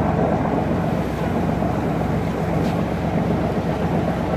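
Tour boat's engine running steadily under an even wash of water and wind noise as the boat moves along the shore.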